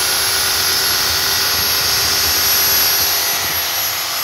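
Bosch GSA 1300 PCE corded reciprocating saw running at full speed, apparently with the blade free, during a test run after servicing. The motor gives a steady high whine over an even mechanical rattle.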